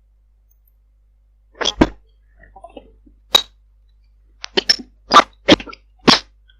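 A string of about nine sharp clicks and clinks at uneven gaps, starting about a second and a half in, heard through a Viber call line.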